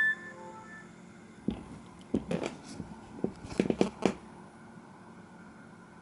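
The tail of a Samsung phone ringtone cuts off in the first moment. A bit over a second later comes a quick cluster of about a dozen sharp clicks and knocks, lasting about two and a half seconds, over a faint steady hiss.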